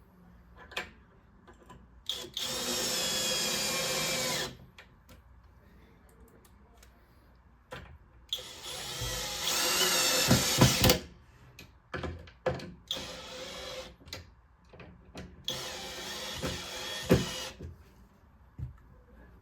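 Electric drill with a Phillips bit driving three wood screws, one run of the motor for each screw, each about two to three seconds long, as the first closet rod support is fastened to the side panel. Clicks and knocks of handling come between the runs.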